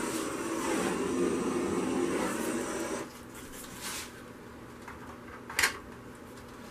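Heat gun blowing steadily, as used to bring up cells and pop bubbles in wet acrylic pour paint; it cuts off suddenly about three seconds in. Then a quiet stretch with a single sharp click a little before the end.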